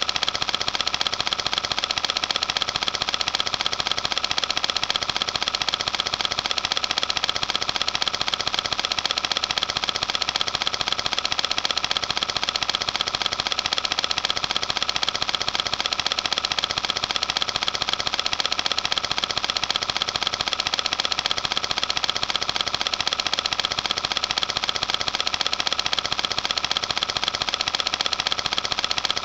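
A steady, fast mechanical clatter, many small ticks a second, that keeps going without change.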